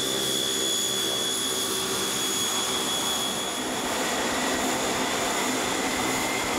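Twin turboprop engines of a Fokker C-31A Troopship running steadily: a rushing hiss with a high, level whine. About halfway through, the sound is heard from inside the cabin and a second, lower whine joins in.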